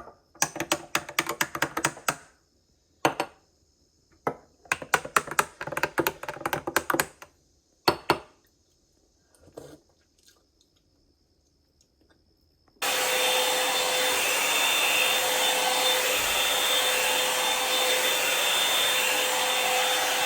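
Quick sharp taps or knocks in several short bursts, then a small electric appliance motor switches on about thirteen seconds in and runs with a steady rush and whine.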